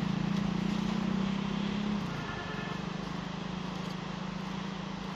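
A steady low engine drone, a little louder for the first two seconds and then holding steady.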